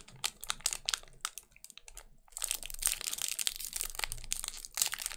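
Foil wrapper of a 1992 Fleer Ultra baseball card pack being torn and peeled open by hand: scattered crackles at first, then dense, steady crinkling from about two seconds in as the wrapper is pulled apart.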